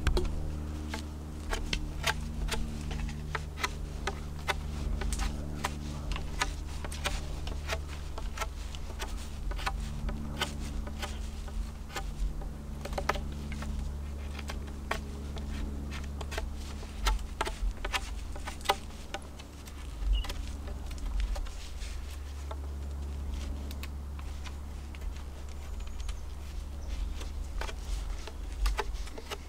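A knife carving a point onto a wooden stake: many short, sharp shaving and chipping clicks as the blade cuts into the wood. An insect buzzes steadily underneath and fades out after about the first half.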